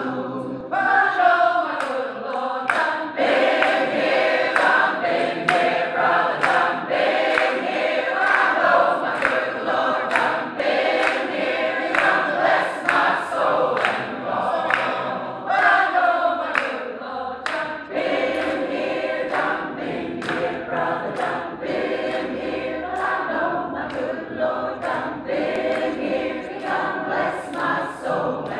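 Large choir singing a gospel song without instruments, the singers clapping along on the beat about twice a second from about a second in.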